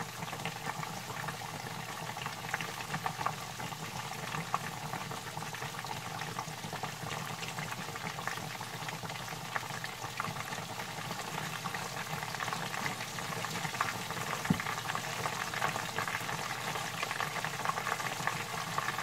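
A whole cornstarch-coated gourami deep-frying in a pot of hot oil: a steady bubbling, crackling sizzle, with a wooden spoon basting the oil over the fish. There is one sharp knock about three quarters of the way in.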